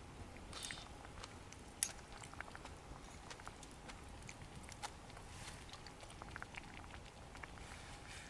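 Scattered light clicks and taps, with one sharper click about two seconds in.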